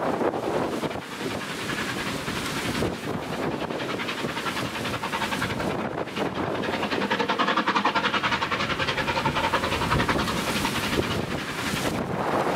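A steam-hauled train passing at speed, its wheels clattering rapidly and evenly over the track, growing louder about halfway through.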